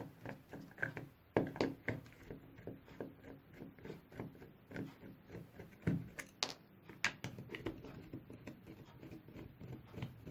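Scattered light clicks and taps from the plastic handle of a soldering iron being handled and opened up, faint and at uneven spacing.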